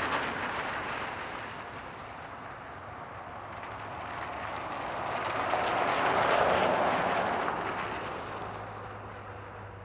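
Cars driving through on a slushy, snow-covered road: tyre noise fades away at the start, then swells as another car passes about six seconds in and fades again.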